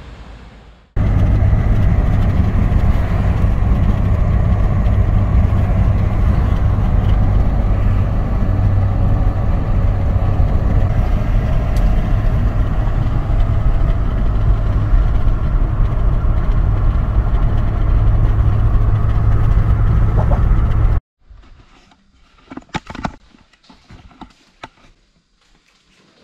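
Steady, loud road and engine rumble of a car driving, heard inside the cabin. It cuts off suddenly near the end, and a few knocks and clatters follow.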